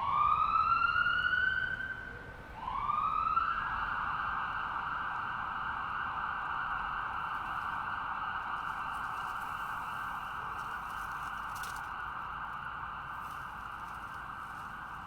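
Ambulance siren winding up in pitch and dropping away. It winds up again about two and a half seconds in, then holds one steady high tone that slowly fades.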